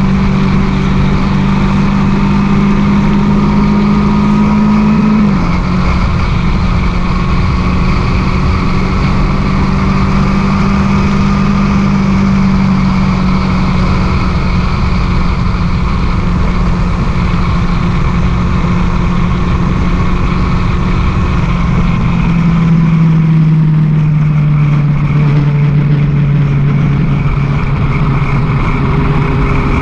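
Sport motorcycle engine running at a steady cruise, with wind noise rushing over the microphone. The engine note steps down slightly about five seconds in and falls gradually through the last third.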